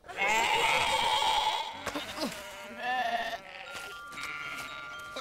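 Cartoon sheep bleating, several voices at once in the first two seconds, then another bleat about three seconds in. Two held music notes start near the end.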